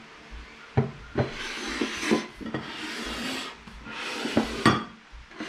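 Plates being set down on a table with a few sharp knocks and slid across the tabletop with several short scraping sounds.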